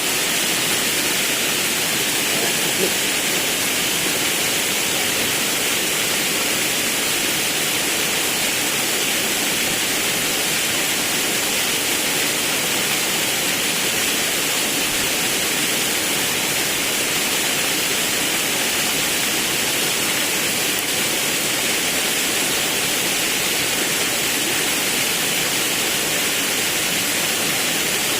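Forest river and waterfall rushing steadily: a constant, even roar of falling and flowing water.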